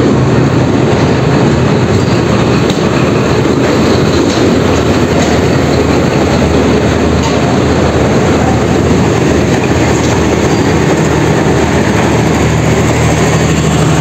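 Pakistan Railways passenger train running, loud and steady, with a low hum under a dense wash of rail noise.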